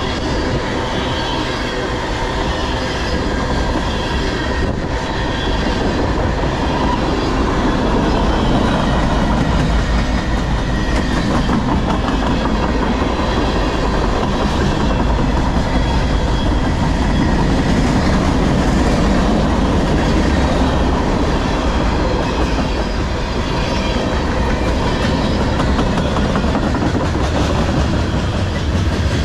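Freight cars of a long CSX manifest train, tank cars, boxcars and covered hoppers, rolling past at track speed: a steady loud rumble with wheels clacking over the rail joints.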